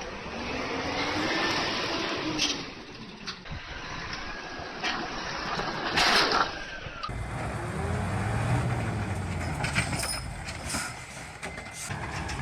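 A truck unloading logs: the machinery whines up and down in pitch, with scattered knocks and one loud crash about six seconds in. After a cut near the middle, a large engine runs with a deep, steady low note.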